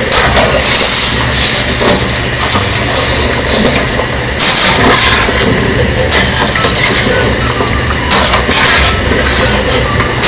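Metal spoon stirring thick peanut sauce in a stainless steel pan, scraping and clinking against the metal, with louder scrapes about halfway through and again near the end, over a steady low hum.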